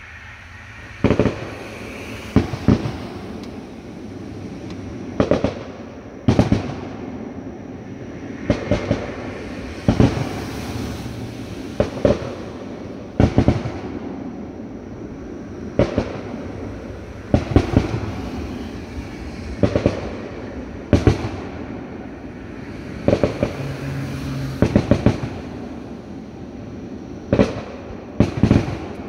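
Fireworks going off: a string of sharp bangs, many in quick pairs, every second or two, over a steady noisy background.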